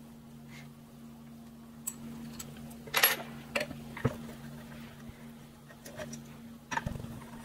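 Small metal parts of a VIAIR 450C air compressor's air-inlet end clicking and clinking as they are handled and taken apart by hand: a few light knocks, the loudest about three seconds in and another near the end, over a low steady hum.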